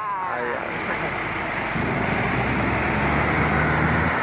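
Passing bus: the last notes of its telolet musical horn slide down and fade in the first half second, then road and tyre noise with a low, steady diesel engine hum that comes in about two seconds in and stops abruptly near the end.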